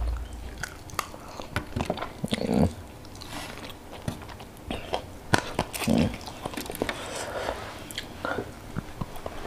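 Mouth sounds of a man eating fried fish and rice by hand: chewing and lip-smacking with many short, sharp clicks and crunches.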